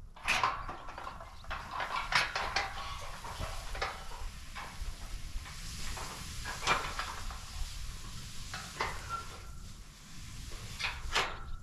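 Steel livestock panels of a portable calf pen clanking and rattling as they are dragged and shifted across the grass: irregular metallic knocks and clatters throughout, a few with a brief ring.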